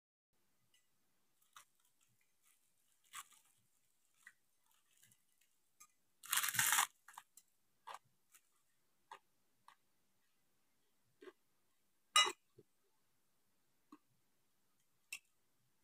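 Crisp fried banana-leaf chips (keripik daun pisang) crunching: a loud crackle lasting under a second about six seconds in, and a sharp crunch about twelve seconds in. Faint chewing and small clicks fall between them.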